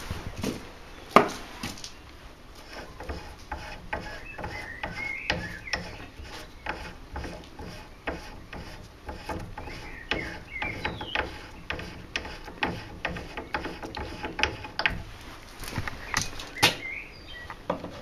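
Scattered knocks, taps and handling noise as hands and a handheld camera move over the wooden beam and steel mounting plate of a home-made wall-mounted tire changer. The sharpest knock comes about a second in, with another cluster near the end.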